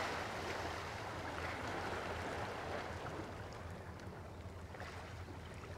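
Calm sea water lapping gently, with a light wash of wind and a low steady hum underneath, easing off slightly over the few seconds.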